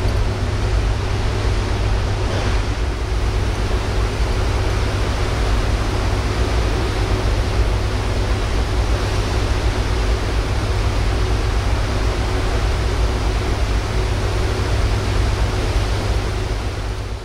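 Steady rush of sea water along the hull of a passenger ferry under way, mixed with wind, over a low rumble from the ship, fading out at the very end.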